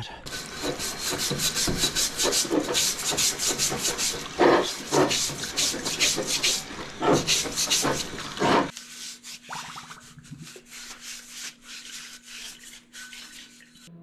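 A rag scrubbed hard over the outside of a steel hydraulic filter housing, quick rubbing strokes about four a second. The scrubbing stops abruptly a little over halfway through, leaving only a faint steady hum.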